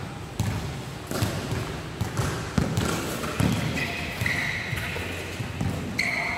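Basketball being dribbled on a hard indoor court, a string of irregular bounces with a reverberant hall echo. Short high squeaks of sneakers on the court come around the middle and again near the end.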